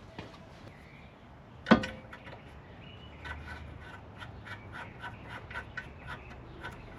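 Control-arm hardware going back on: one sharp metal clank about two seconds in, then light, even clicking, about three clicks a second, from a hand ratchet running a bolt in.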